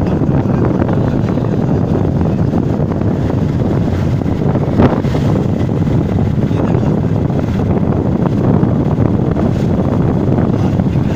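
Wind rushing over the microphone of an open vehicle moving along a road, over the steady running noise of the vehicle. A brief knock about five seconds in.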